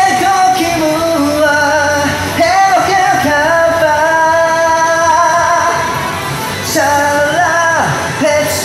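Karaoke: a man singing a pop song loudly into a microphone over a backing track. He holds a long, steady note through the middle, with shorter sliding phrases before and after.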